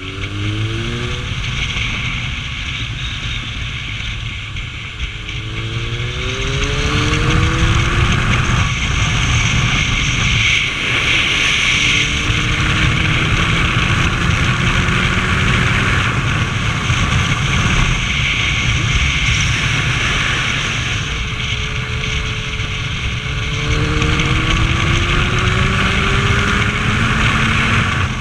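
Kawasaki ZRX1200's inline-four engine under way, its revs climbing in long sweeps about four times as the bike pulls up through the gears, with steady wind noise rushing over the microphone.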